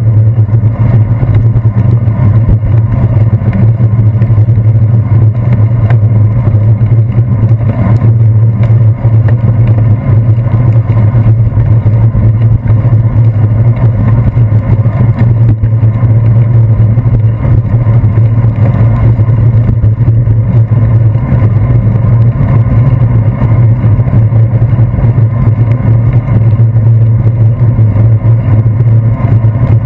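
Steady, loud low hum and rough rumble from a handlebar-mounted GoPro Hero 2 on a bicycle riding over wet pavement: road vibration and wind noise carried through the bars into the camera.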